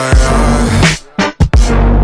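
Background music with heavy bass and a hard beat, dropping out briefly about a second in.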